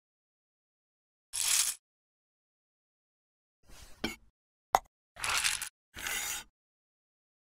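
Edited-in stop-motion sound effects, each short and cut off into dead silence: a swish about a second and a half in, a soft rustle ending in a click around four seconds, a sharp click, then two swishes close together near the end.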